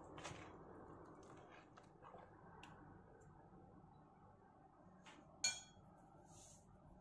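Faint wet squishing of a silicone spatula stirring minced fish in liquid in a plastic container, dying away over the first few seconds. A single sharp clink comes about five seconds in.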